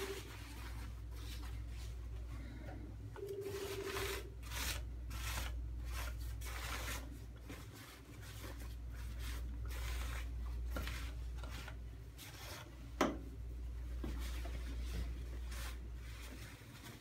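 A lint roller rolled in repeated strokes over a cloth surgical gown, giving a rubbing rasp, along with the rustle of the gown's fabric being smoothed and folded. A single sharp click sounds about thirteen seconds in.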